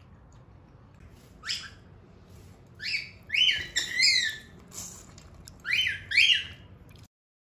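A pet bird calling loudly for food, about seven high, arching chirps coming in twos and threes as it begs to share the meal.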